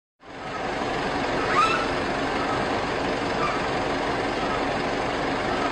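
Steady rumble of stopped vehicles' engines idling, with one short, high, rising squeak about a second and a half in.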